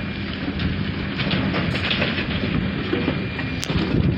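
A diesel engine running steadily, with a low, even hum, and wind rumbling on the microphone.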